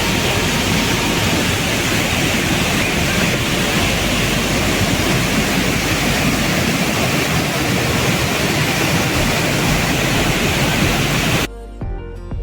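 Waterfall pouring, a loud steady rush of water filling the sound. Near the end it cuts off suddenly and music begins.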